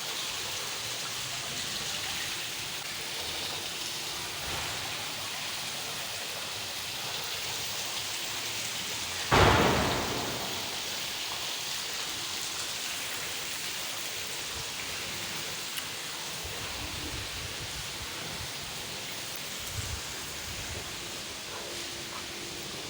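A steady hiss of noise, with one sudden loud burst about nine seconds in that fades away over about a second.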